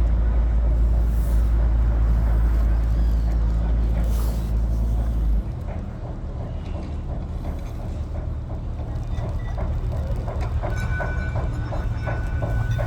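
Boat engine chugging with a regular rhythmic knock, a few beats a second, under a heavy low rumble that drops suddenly about five seconds in.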